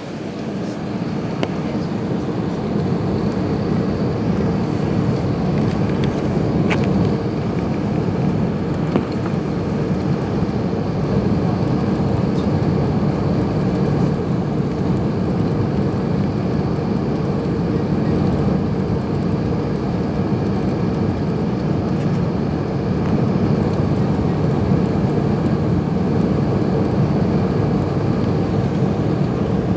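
Airbus A380 cabin noise on the approach: a steady low rush of engines and airflow heard from a seat over the wing, with a few faint ticks in the first ten seconds.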